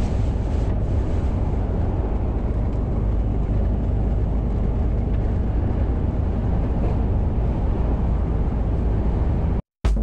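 Steady low rumble and rush inside a Mercedes-Benz lorry cab at motorway speed: engine, tyres on a wet road and strong storm winds buffeting the cab. It cuts out suddenly near the end and strummed acoustic guitar music starts.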